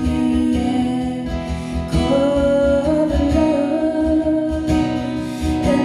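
A woman singing with long held notes, accompanied by a strummed acoustic guitar.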